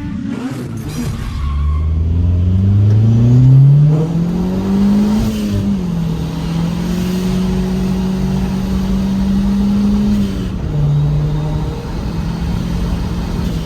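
Turbocharged 1998 Honda CR-V's 2.0 L B20B4 four-cylinder engine pulling under acceleration, its pitch rising for a few seconds and then holding steady. About ten seconds in the pitch drops a step and settles.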